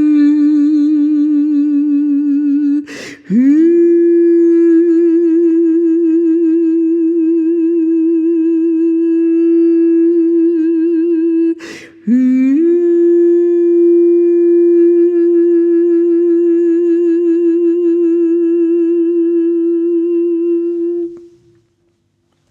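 A woman's wordless vocal tones for sound healing, each note held long and steady with a slight vibrato. Two quick breaths break the tone, about 3 and 12 seconds in, and each time the voice slides back up into the note. The last note fades out near the end.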